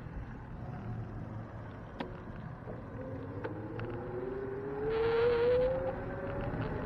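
A motor vehicle accelerating nearby, its engine pitch rising steadily over about three seconds and loudest near the end, over a steady rumble of road and wind noise, with one sharp click about two seconds in.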